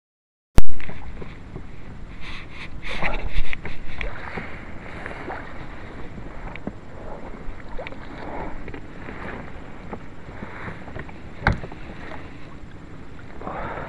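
A loud click as the recording cuts in, then steady rushing noise of flowing water and wind on a small action camera's microphone, with rustling and crackling as the rod and camera are handled, loudest a couple of seconds in, and a sharp click near the end.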